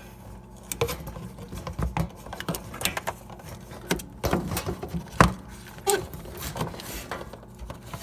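Irregular plastic clicks, taps and scraping as the defrost drain pipe with its U-trap is unclipped and worked out from under a Whirlpool refrigerator, with one sharper knock about five seconds in. A faint low hum runs underneath.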